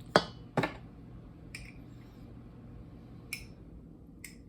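A serving utensil knocks and clicks against a bowl as macaroni salad is spooned in and arranged. There are two sharp knocks right at the start, then a few fainter clicks spaced out over the next few seconds.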